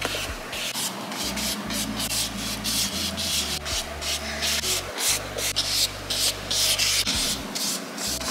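Flat bristle paintbrush swishing across paper and card in quick repeated strokes, a few a second, as cyanotype sensitizer solution is brushed on.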